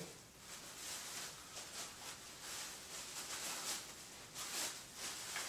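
Clear plastic packaging bag crinkling and rustling in uneven handfuls as a vacuum handle assembly is handled and unwrapped.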